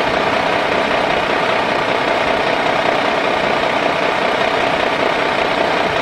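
Truck engine running steadily with an even, unchanging drone.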